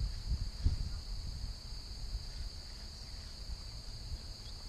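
Steady, high-pitched insect chorus in the marsh, with some low rumbling on the microphone in the first second.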